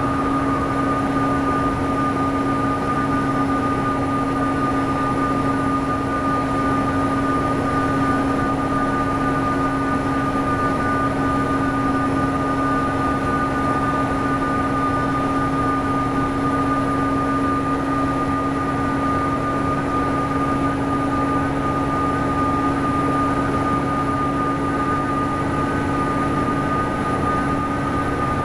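Diesel engine of a Nabi 436 transit bus running steadily under way, with its turbocharger whistle heard as a steady high tone over the engine and road noise.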